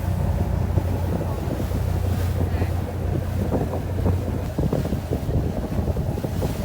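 Strong wind buffeting the microphone: a heavy, steady low rumble with crackling gusts.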